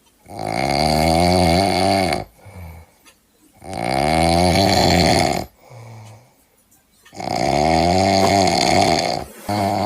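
Loud snoring from a sleeping man: three long snores of about two seconds each, roughly every three and a half seconds, each a rattling tone that rises and falls in pitch, with short, softer breaths between them.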